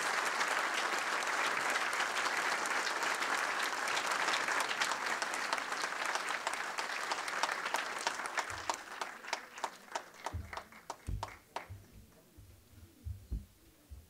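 Audience applauding: a dense round of clapping that thins to scattered claps after about eight seconds and dies away, with a few low thumps near the end.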